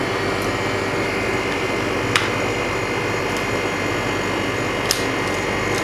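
Steady mechanical hum and hiss of an LCD freezer machine's cooling unit running, with two short clicks as the frozen Note 8 screen is handled on its cooling plate.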